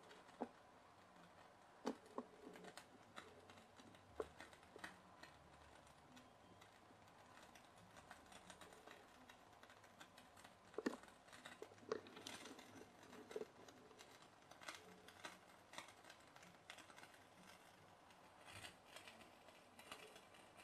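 Near silence: room tone with faint, irregular clicks and ticks.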